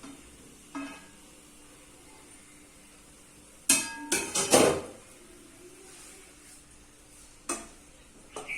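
A metal spoon clinking and scraping against a cooking pot as chopped onions are stirred in ghee: one clink about a second in, a quick run of three loud clinks with a metallic ring about four seconds in, and another clink near the end.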